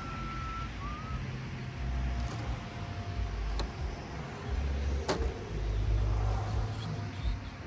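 Low, uneven rumble of wind buffeting the microphone, with a few sharp clicks, likely from hand tools on the AC line fittings.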